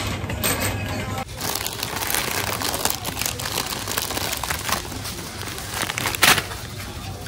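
Crinkly snack bag of plantain chips rustling as it is handled and put into a wire shopping cart, with one loud crackle about six seconds in.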